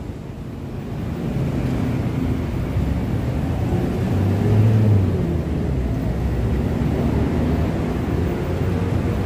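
Road traffic crossing the bridge overhead: a low engine rumble that swells to its loudest about four to five seconds in, then settles into a steady drone.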